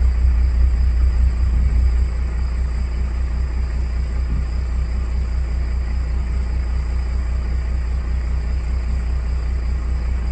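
Steady low rumble, a little louder for the first two seconds, with a faint high whine above it.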